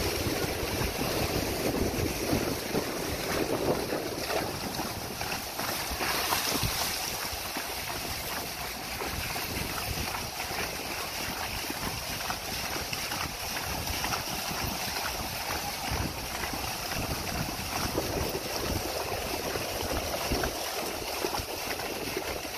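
Wind buffeting the microphone over the splashing of horses wading and trotting through shallow floodwater and wet grass, with many irregular hoof splashes.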